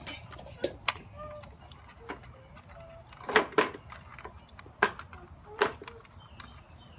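Screwdriver backing a small screw out of a plastic tower-fan housing: a few irregular sharp clicks and knocks, the loudest about three and a half seconds in.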